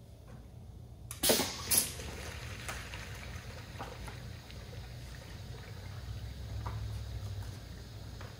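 Piston filler dispensing liquid into a collapsible plastic bottle: two short loud bursts a little over a second in, then liquid running steadily into the bottle over a low hum.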